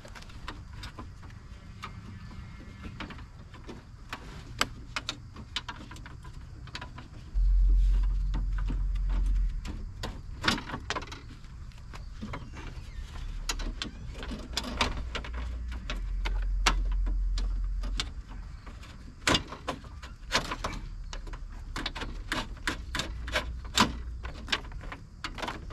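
Repeated clicks and knocks of metal and plastic parts being handled inside a car door with its trim panel off, with stretches of low rumble.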